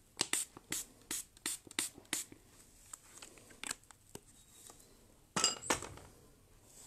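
Hand pump spray bottle of rose water spritzed in a quick run of about eight short hissing sprays, then one more a couple of seconds later. About five seconds in come two louder knocks with a brief ring, as a bottle is set down among the jars.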